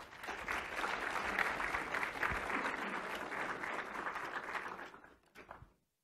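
Audience applauding, a dense patter of many hands clapping that tapers off about five seconds in and then cuts off.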